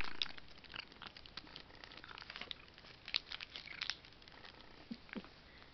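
Plastic wrapper of a meaty cat treat stick crinkling in irregular crackles as a cat licks and chews the treat out of it.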